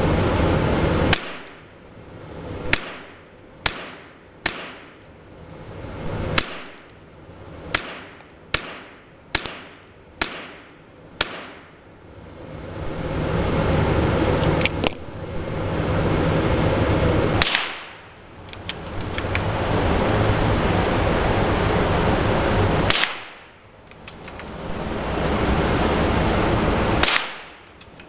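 Gunshots: a string of about ten shots roughly a second apart, then four more spaced several seconds apart. Between shots a loud hiss that falls away after each shot and swells back up.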